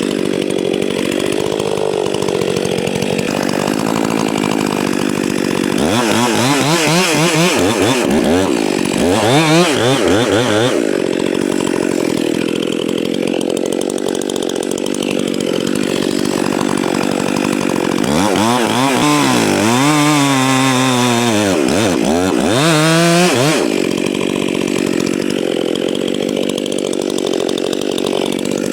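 Stihl MS 261 two-stroke chainsaw running while sawing into a standing tree trunk to fell it. It runs mostly at a steady high speed, and twice, about six seconds in and again near twenty seconds, the engine speed swings rapidly up and down for a few seconds.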